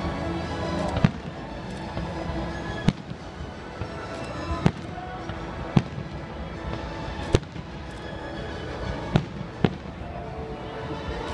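Aerial firework shells bursting overhead: seven sharp bangs at uneven intervals, the last two in quick succession.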